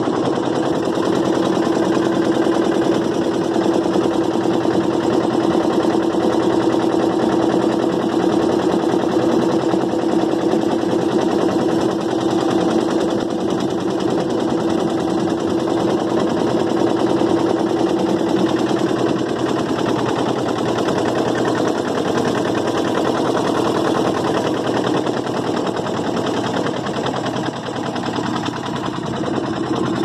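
Boat engine running steadily, a constant hum with a fast, even rattle of firing pulses.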